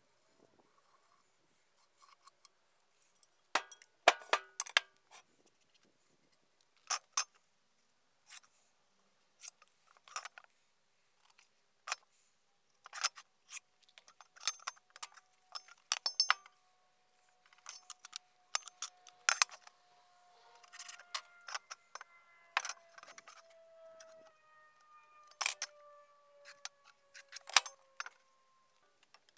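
Scattered small clicks, taps and light clinks as hand tools and steel pieces are handled and set down on plywood and a steel wheel, with a few faint ringing tones that slowly drop in pitch in the second half.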